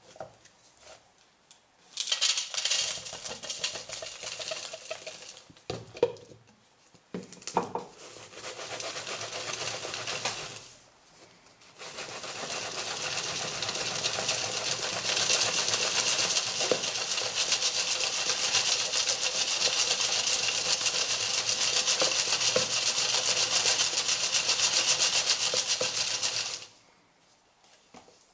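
Crushed charcoal pieces rattling against a wire-mesh sieve and the sides of a clay flower pot as the pot stack is shaken to sort the coal by size. The shaking comes in two spells, a short uneven one and then a long steady one of about fifteen seconds that stops suddenly.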